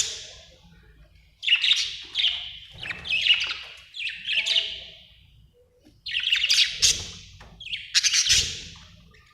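Budgerigar calling in a run of short, harsh, scratchy squawks, bunched in quick clusters, with a pause a little past halfway.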